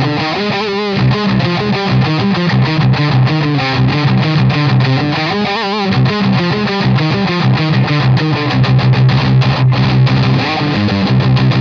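Schecter PT Apocalypse electric guitar played through heavy distortion: a rhythmic riff on low, chugging notes.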